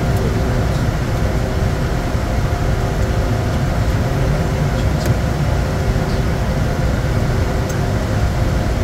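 Steady in-flight cockpit noise of a Bombardier Challenger 350 business jet on approach: a constant rush of airflow and engine noise with a deep rumble and a faint, even hum.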